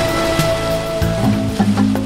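Background music: held notes that change chord a little over a second in.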